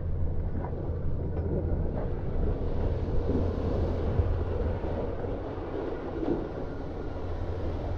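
An engine running steadily with a low, even hum, a few faint knocks over it.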